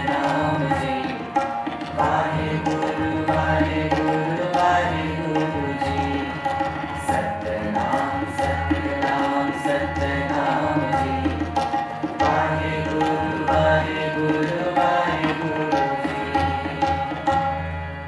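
Sikh kirtan music: a harmonium holds sustained chords while a pair of tabla keeps a steady rhythm of deep bass strokes and sharper treble strikes. The music fades out at the very end.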